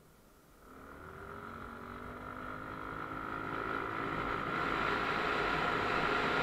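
Motorcycle engine pulling away, its pitch rising as the bike accelerates. Rushing wind noise on the microphone builds with the speed, and the whole sound grows steadily louder from about half a second in until it levels off near the end.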